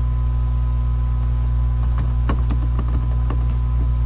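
A computer keyboard typing, a quick run of about eight key clicks starting about two seconds in, over a steady low hum.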